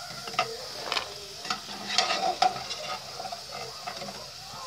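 A perforated metal slotted spoon scraping and clinking against an aluminium pressure cooker as fried elephant foot yam cubes are scooped out of hot oil, over the steady sizzle of the frying oil. There are several sharp clatters, the loudest about two seconds in.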